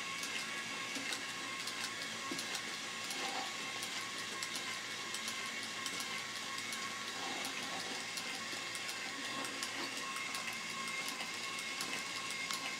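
Two small battery-powered TT gearmotors (DC motors with plastic reduction gearboxes) whirring steadily as they drive 3D-printed dancing robots. Their rocking plastic bodies, arms and heads add many light, irregular clicks.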